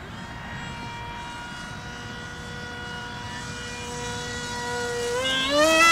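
Electric motor and propeller of a foamboard RC plane in flight, a steady whine that climbs in pitch and grows louder in the last second as the throttle is opened after a glide.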